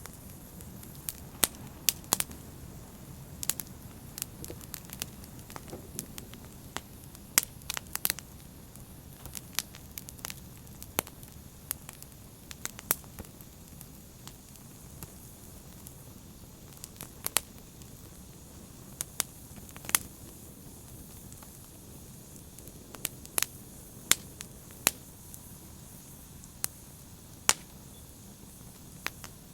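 Open fire crackling: a steady low burning noise under frequent irregular sharp pops, densest in the first half and sparser later.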